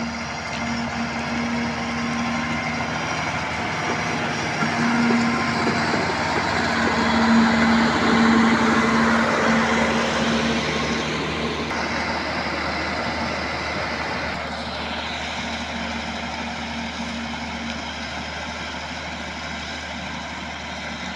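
Heavy diesel construction vehicle running steadily under load, growing louder to a peak about eight seconds in and then easing off.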